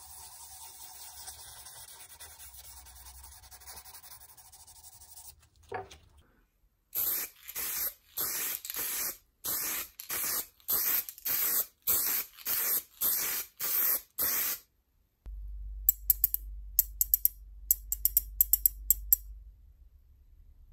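A blade scrapes old paint off a plastic part. After a pause, an aerosol spray-paint can is sprayed in about ten short bursts, each under a second long. Near the end comes a quick run of sharp metallic clicks.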